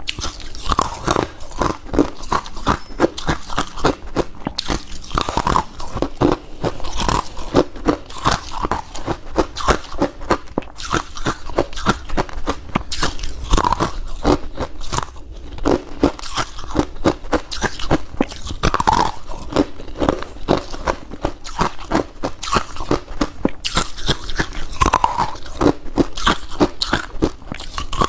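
Close-up crunching and chewing of mouthfuls of crunchy freezer frost, a rapid continuous run of crisp crackles with no pause.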